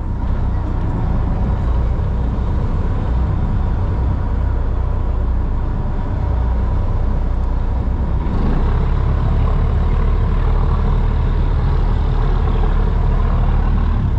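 Portable generator running steadily: a constant low drone with a faint, even whine above it.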